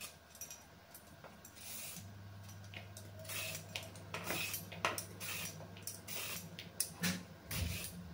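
Hand peeler scraping a raw carrot into thin strips that drop into a plastic bowl: a run of short, irregular scraping strokes.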